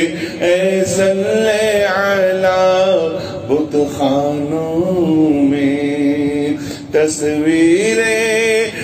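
A man singing an Urdu devotional naat in praise of the Prophet close into a microphone, in long held notes with wavering ornaments and short breaks between phrases.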